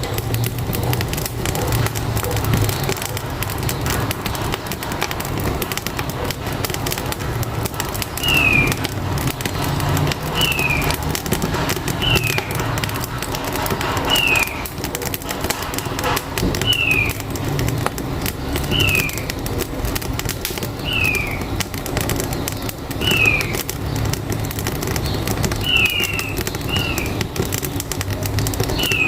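Wood-burning stove fire crackling over the steady low rumble of a truck engine. From about eight seconds in, a bird repeats a short, high, falling chirp about every two seconds.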